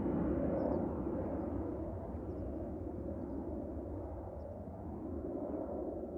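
A low, noisy rumble from a contemporary chamber ensemble, with no clear pitch, slowly fading away.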